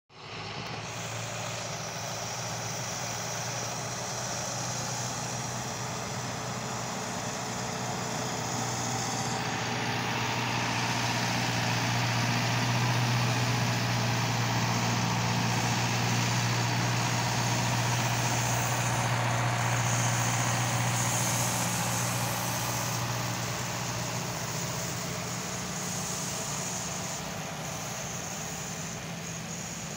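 Zetor Proxima 120 tractor's diesel engine running steadily under load while spraying. It grows louder toward the middle as the tractor passes and eases off again near the end.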